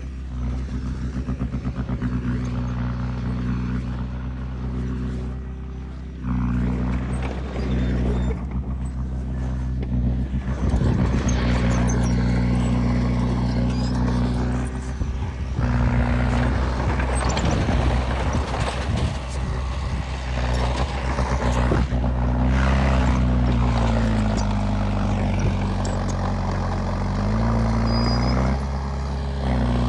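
Heavy diesel engine of earthmoving machinery running steadily, its pitch dipping and recovering twice near the end as it takes load.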